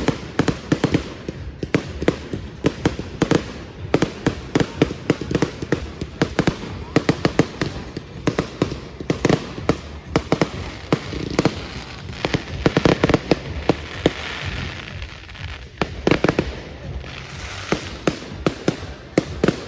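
Fireworks going off in rapid succession: a dense run of sharp cracks and bangs, several a second, with a hissing stretch about thirteen seconds in.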